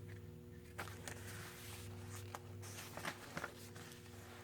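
Soft rustling and a few light taps of paper and card stock being handled as a journal's pages and cards are turned. A faint steady hum runs underneath.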